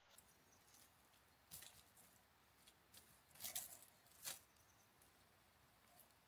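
Dry grass stems and dead leaves rustling and crackling a few times, briefly, as a cat moves through the undergrowth, the loudest crackles around the middle; otherwise near silence.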